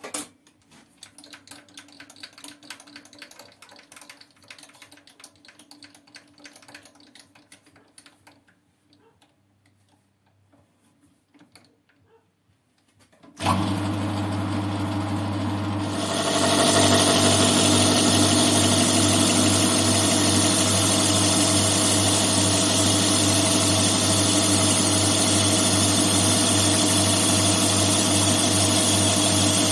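Faint light clicks and handling sounds, then about halfway through a CJM280 benchtop lathe is switched on and runs with a steady hum. A couple of seconds later it grows louder and fuller and holds steady.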